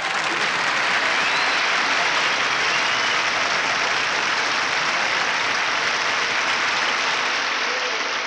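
Audience applauding steadily, a full round of applause.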